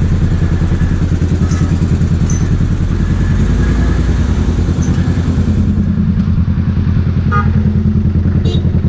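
Sport motorcycle's engine running steadily at low revs while ridden slowly through stop-and-go traffic, a continuous low rumble.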